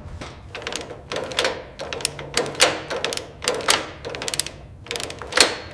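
An irregular series of sharp knocks, about two a second, each with a short ring; the loudest comes near the end.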